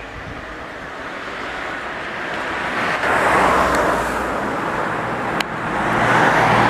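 Road traffic noise: vehicle tyre noise swelling about three seconds in and again near the end, with a sharp click about five seconds in.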